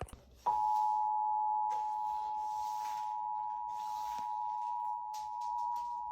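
Emergency Alert System two-tone attention signal: two steady pitches sounding together, starting suddenly about half a second in and holding unbroken, sounded ahead of a Required Monthly Test message. A few sharp clicks come just before it, and short bursts of hiss sit behind the tone.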